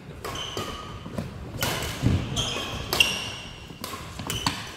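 Badminton rally: several sharp cracks of rackets striking a shuttlecock, with short squeaks of court shoes on the wooden floor, echoing in a large gym hall.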